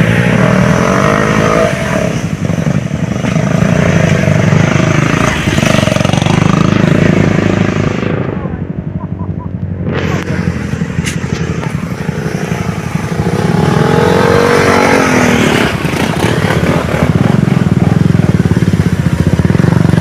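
Motorcycle engine running on the move, its pitch rising and falling with the throttle; the sound goes muffled for a couple of seconds near the middle.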